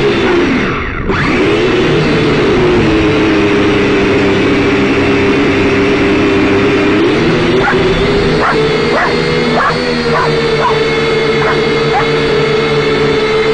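Syma X5C quadcopter's four rotors whining steadily; about a second in the pitch drops sharply and climbs back as the throttle is eased off and opened up again. From about halfway, a dog gives a string of short, high barks and yips.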